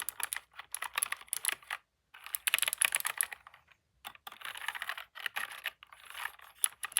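Typing on a computer keyboard: quick runs of key clicks in three bursts, with brief pauses between them.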